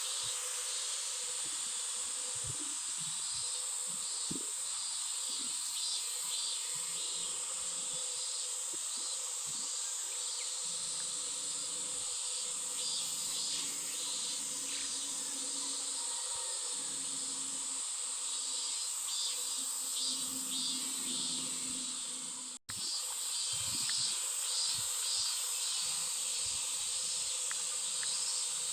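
Outdoor insect chorus: a steady, high-pitched drone with a pulsing shimmer over it, which cuts out for a split second about three-quarters of the way through.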